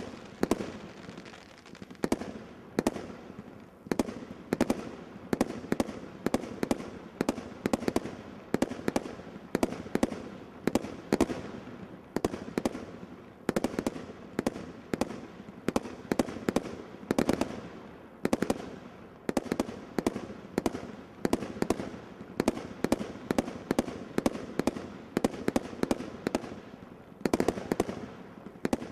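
Brothers 'OMG' category 3 combination roman candle firework firing a continuous barrage: sharp shots popping in quick succession, about two to three a second, without a break.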